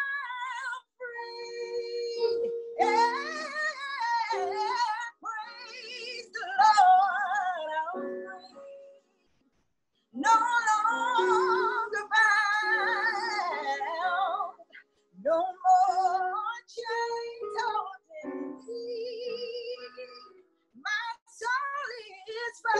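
A woman singing a gospel worship song solo with strong vibrato over steady held accompaniment notes. The sound breaks off to silence for about a second around the middle.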